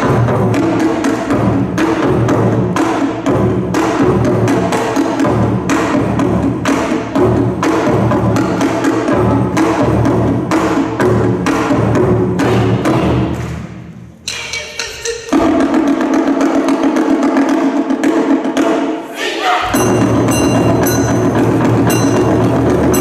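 Loud yosakoi dance music with a driving beat and regular sharp clicks. About fourteen seconds in the beat drops out, a held chord with no bass follows for about four seconds, then the full beat comes back.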